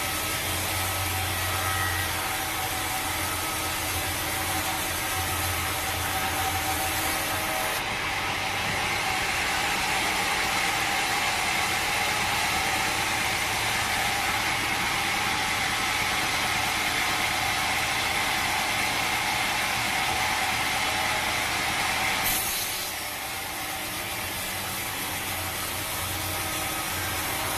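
Sawmill saw running and cutting through a teak log, its sound changing into a steadier, higher note for a long stretch in the middle.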